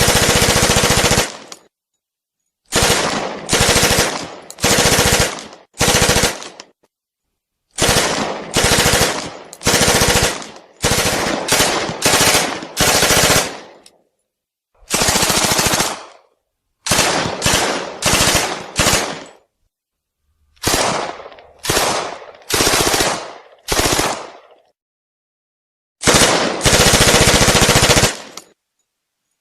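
Thompson submachine gun firing on full automatic in repeated bursts, each from about half a second to a second and a half long, with short pauses between them; many bursts fade out in a short tail.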